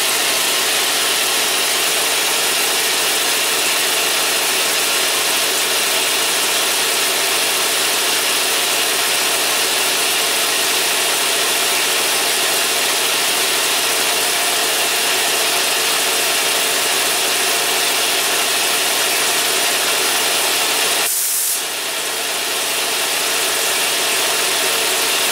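Quincy QR-25 model 325 air compressor pump running steadily, belt-driven by its electric motor. Near the end the deep part of the sound drops away and a steady hiss comes up.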